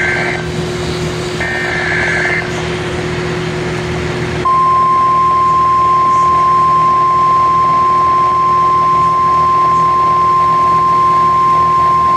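A NOAA Weather Radio broadcast plays from a Midland WR120 weather radio over static hiss. A warbling SAME digital header burst ends just after the start and a second burst follows about a second and a half in. About four and a half seconds in, the steady 1050 Hz warning alarm tone begins and holds; it announces a severe thunderstorm warning.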